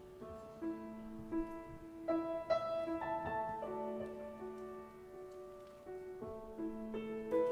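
Piano playing a slow piece, with held notes and chords changing every second or so.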